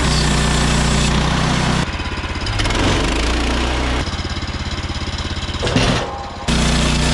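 Woodland Mills HM130 Max sawmill's gas engine running. Its steady drone changes abruptly about two seconds in to a slower, pulsing beat, then switches back to the steady drone near the end.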